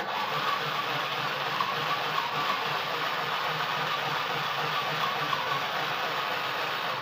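Mini sewing machine running steadily, its small motor whirring as the needle stitches at an even, fast rhythm.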